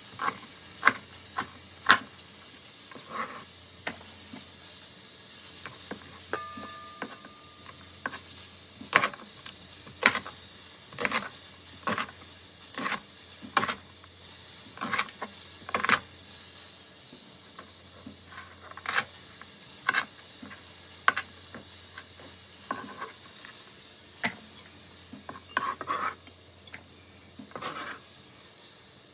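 Kitchen knife chopping green onions on a plastic cutting board: sharp, uneven chops about one a second over a steady hiss.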